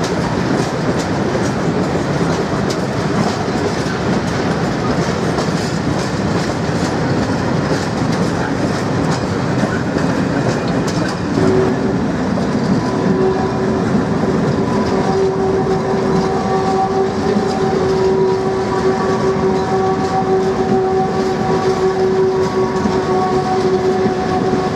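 A train of empty Ealos open freight wagons rolling slowly through a yard, their wheels clattering and the bodies rattling. About halfway through, a steady, even squeal of wheels on the track joins in and holds.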